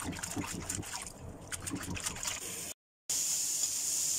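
Green beans being swished and rubbed by hand in a basin of water, with irregular splashing. It cuts off abruptly, and about three seconds in a steady sizzle starts as green beans and minced pork stir-fry in a steel wok.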